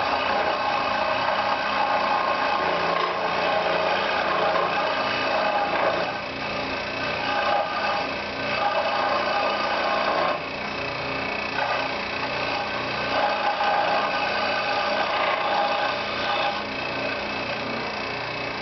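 Power saw cutting through a piece of log to slice its back flat. It runs steadily, and its level drops briefly several times as the cut goes on.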